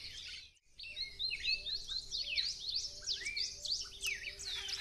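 Many birds chirping and calling together, short quick chirps overlapping densely. A faint steady low hum runs underneath, and the sound cuts out briefly about half a second in.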